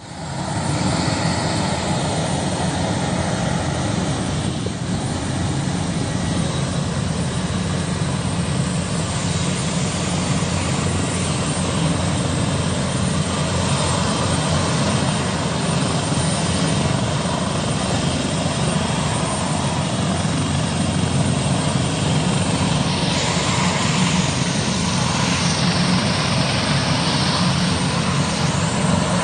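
Military helicopter's rotor and turbine engines running loudly and steadily as it moves slowly across the airfield.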